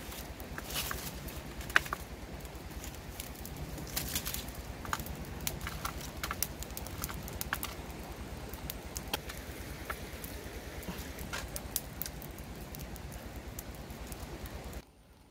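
Open wood fire crackling, with sharp pops and snaps scattered irregularly over a steady hiss and low rumble; one loud pop about two seconds in. The sound drops away abruptly just before the end.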